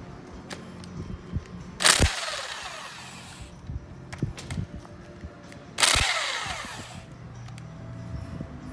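Power wrench on a socket extension spinning out bolts from a Volkswagen manual gearbox casing: two short bursts, about two and six seconds in, each trailing off in a falling whine. Light metal clinks come in between.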